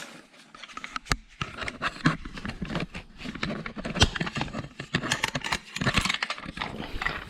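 Irregular clicking, rattling and scraping of metal tools and parts being handled at a boiler, with a couple of sharper knocks.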